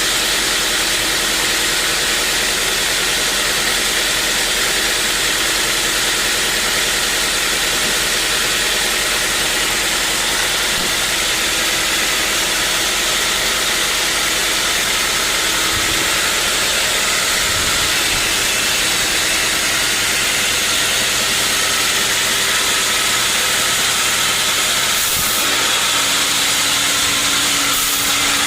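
Sawmill machinery running steadily: a constant, loud mechanical noise with a low steady hum underneath.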